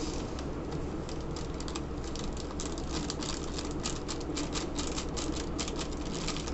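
Plastic spice packet crinkling and a metal spoon scraping inside it as masala powder is scooped out: a quick run of small crackles, thickest in the middle, over a steady low hum.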